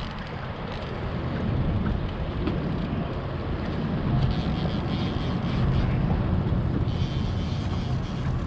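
Fishing boat's motor running steadily under way, with wind buffeting the microphone.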